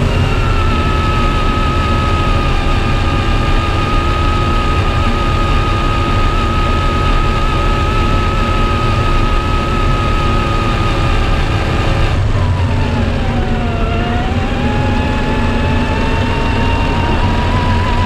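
RC4WD Desert Runner 1/10 scale RC truck's motor and gears whining at a steady pitch over a low rumble. About two-thirds of the way through, the whine drops in pitch as the truck slows, then rises again as it speeds back up.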